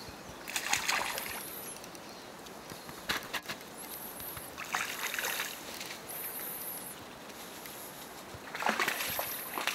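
A hooked grayling splashing at the surface while it is played on a fly rod: three splashes, about a second in, around five seconds in and near the end, over the steady rush of the river. A few sharp clicks sound around three seconds in.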